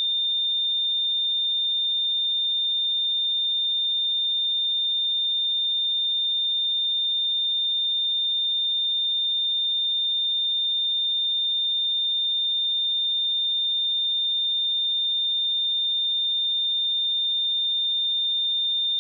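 A pure 3615 Hz sine-wave test tone, a single steady high-pitched whistle held at constant level.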